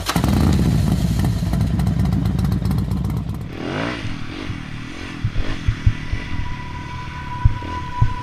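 Yamaha dirt bike engine running on a forest trail, loudest in the first three seconds with a dense crackle over it; from about halfway the engine note rises and falls as the throttle is worked, with several sharp knocks from the bike over bumps.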